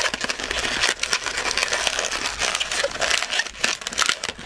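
Green 160 latex modelling balloon squeaking and rubbing as it is twisted by hand into small fold twists, a rapid, uneven run of short squeaks and crackles.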